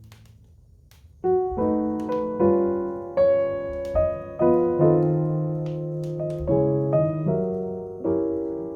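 Piano playing a slow melody of single struck notes, starting about a second in after a brief near-quiet gap. Faint crackles of a burning fireplace pop now and then underneath.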